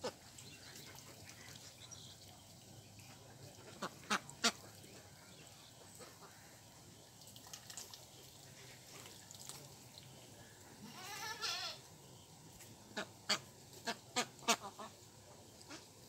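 Domestic ducks dabbling at a muddy pond edge: sharp clicks and splashes from their bills come a few at a time about four seconds in and in a quick cluster near the end. One short quacking call sounds a little past the middle.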